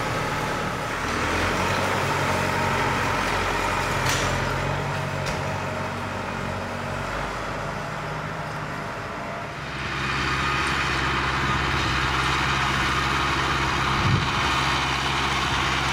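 Farm tractor engine running steadily. About ten seconds in the sound changes to the tractor working under load, pulling a four-bottom moldboard plow through sod.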